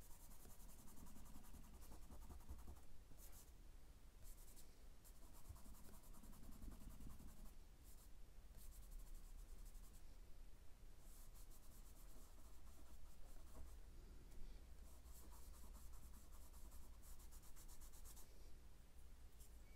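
Charcoal stick scratching and rubbing on sketchbook paper in short shading strokes, faint and stopping and starting.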